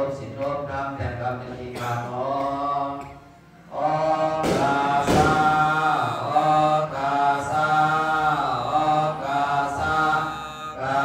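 Buddhist monk chanting into a microphone in long, held tones. The chant breaks off briefly about three and a half seconds in, then comes back louder.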